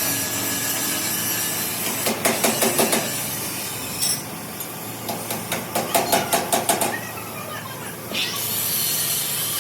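Two runs of quick, evenly spaced hammer strikes over steady workshop noise, then a steady hiss near the end.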